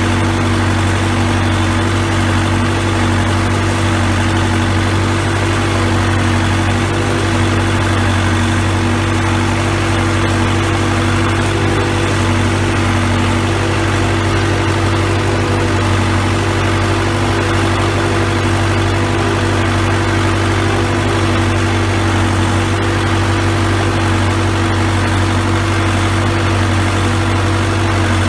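Four-cylinder diesel engine of a 1960s Case 580B backhoe running at a steady speed, a constant loud drone with no revving or change in pitch.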